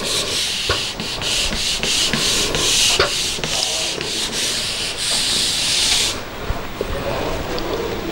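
A felt board duster rubbed back and forth across a whiteboard to erase writing, in quick scratchy strokes about two or three a second. The wiping stops suddenly about six seconds in.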